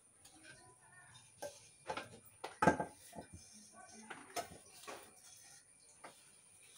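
Ground coconut paste being scraped by hand off a stone grinding slab into a frying pan held at the slab's edge: a run of soft scrapes and light knocks of the pan against the stone, the loudest about two and a half seconds in.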